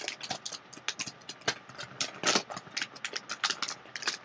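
Packaging being opened and handled: an irregular quick run of crinkles, clicks and snaps from the adapter's plastic case and box.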